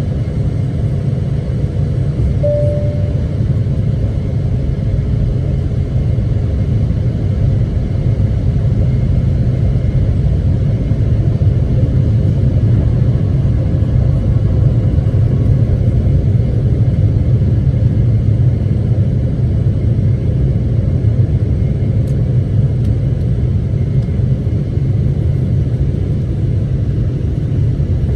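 Steady low rumble of a Boeing 777-300ER airliner, with no rise or fall, and one short faint tone about two and a half seconds in.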